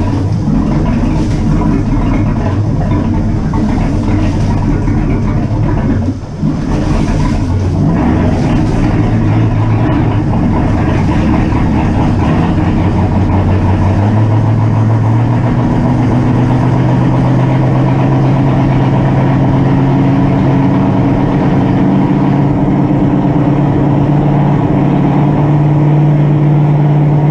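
Ford 302 V8 inboard engine of a 1974 Century Resorter, running through newly fitted Hardin marine mufflers, brought up from idle to about 2000 RPM. After a brief dip about six seconds in, the engine speed climbs and settles into a steady higher note that creeps up slowly.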